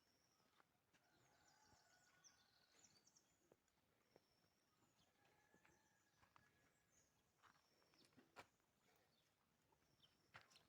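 Faint outdoor birdsong: short high chirps and whistles from small birds, scattered through, with a few soft clicks.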